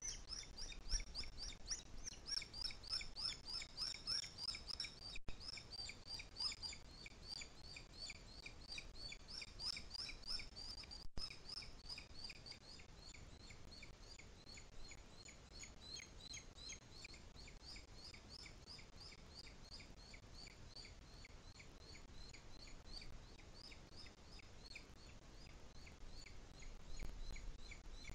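Booted eagle chick giving a fast, steady run of short, high, downslurred begging calls, about five or six a second, while being fed at the nest; the calls fade after about halfway.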